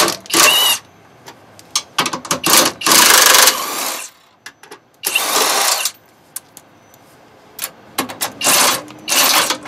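Cordless impact wrench hammering in about eight short bursts, the longest about half a second, as it loosens and backs out 13 mm factory bolts that are tight and tough to get off.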